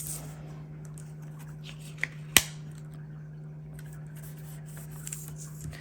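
Quiet handling of paper stickers being placed and pressed onto a planner page, with two sharp clicks about two seconds in, over a steady low hum.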